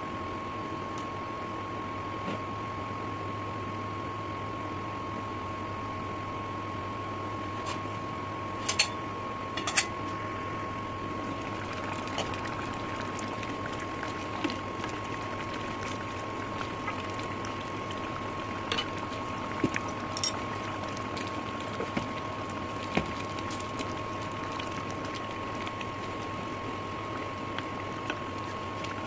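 Pot of meat-and-potato curry simmering over a steady hum with a constant high whine. A couple of sharp knocks come about nine and ten seconds in, and lighter taps follow later: the pot lid and the wooden spatula against the pot as the curry is uncovered and stirred.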